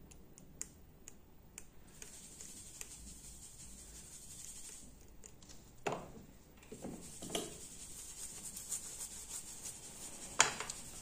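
Faint scratching and rubbing of a small tool on a phone circuit board, with scattered small ticks and a sharper click near the end. A faint steady high hiss comes in about two seconds in.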